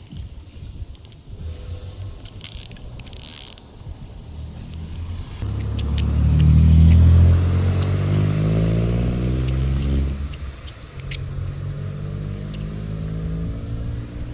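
A passing engine swells to its loudest about six to eight seconds in, then falls in pitch as it moves away. A steadier low engine hum follows near the end.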